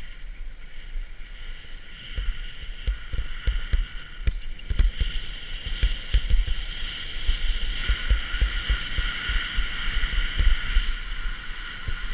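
Wind rumbling and thumping unevenly on a camera microphone during a ski descent, over a steady hiss of skis sliding and carving on groomed, packed snow. The ski hiss grows stronger about halfway through.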